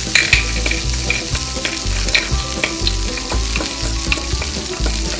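Steady frying sizzle with irregular light clacks of a toy spatula stirring toy vegetable pieces in a toy wooden frying pan. A wooden toy cannot sizzle, so the sizzle is a frying sound laid over the play cooking.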